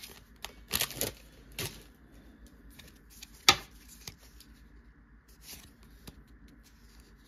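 Trading cards handled by hand: a stack of Pokémon cards being flipped through one at a time, with scattered soft card slides and snaps. The loudest is a single sharp click about three and a half seconds in.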